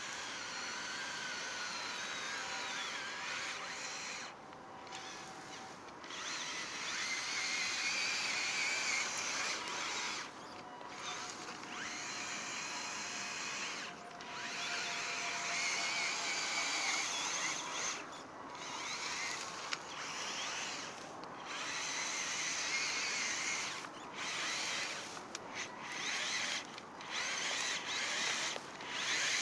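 High-pitched whine of an RC model's electric motors, wavering up and down in pitch and breaking off briefly many times.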